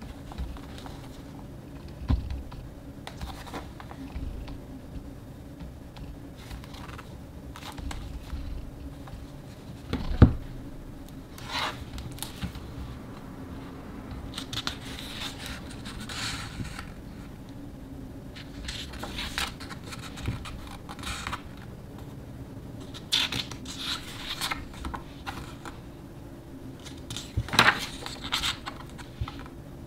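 Hardcover photobook handled on a wooden table: a sharp knock about ten seconds in as it is set down, then the cover opening and stiff pages turning with papery swishes and scrapes, several times over.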